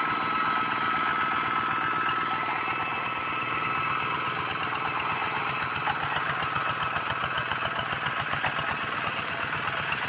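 Single-cylinder diesel engine of a two-wheel walk-behind hand tractor running under load as it pulls a plough through the soil, a steady rapid chugging that becomes more pronounced and uneven about halfway through.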